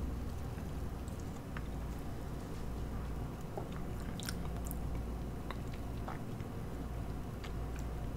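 Small wet mouth clicks and lip smacks, scattered every second or so, as soda is tasted after a sip, over a low steady hum.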